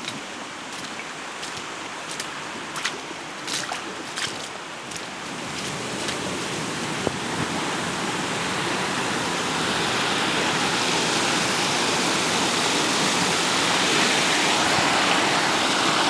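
Small woodland stream rushing over a rocky step, growing louder over the first ten seconds and then steady. During the first five seconds there is a handful of sharp ticks, roughly one every second.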